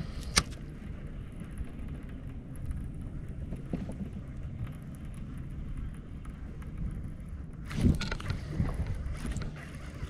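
Steady low rumble of a bass boat on the water, with a sharp click about half a second in and a brief louder burst just before eight seconds.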